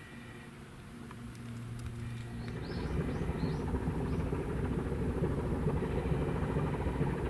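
Low engine rumble of small coastal tanker ships passing on the water, swelling from about two and a half seconds in. A bird chirps a few quick notes just as the rumble begins.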